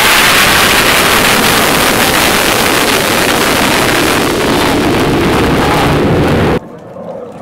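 US Navy F/A-18 jet making a loud, steady jet roar as it flies past overhead, cut off abruptly about a second before the end.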